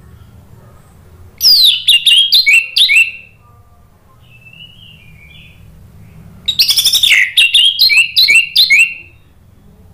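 Orange-headed thrush singing: two loud bursts of song, each a quick run of sharp notes that sweep downward, the first about a second and a half in and the second, longer one from about six and a half seconds. A faint short warble comes between them.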